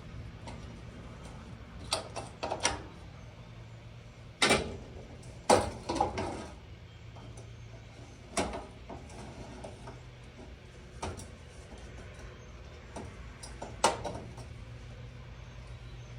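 Irregular knocks and clanks of stove parts being handled, about eight over several seconds, some with a short ring, over a steady low hum.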